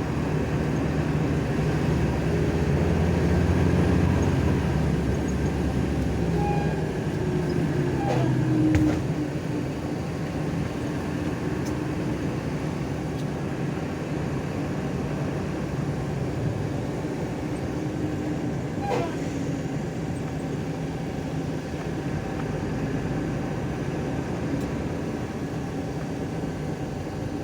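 Intercity bus engine running under way with steady road noise. The engine note glides down and eases about nine seconds in.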